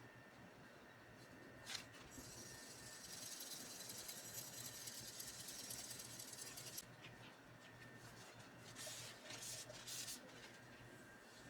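Faint steel-on-abrasive scraping as the Shun Sora chef's knife edge is worked on a sharpening stone: a steady hiss of about five seconds, then a few short strokes near the end.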